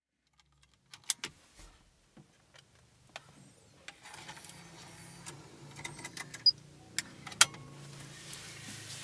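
A slot-loading car CD head unit taking in a disc: scattered clicks and knocks of handling, then a steady low hum of the loading mechanism from about four seconds in, with a few sharp clicks near the end.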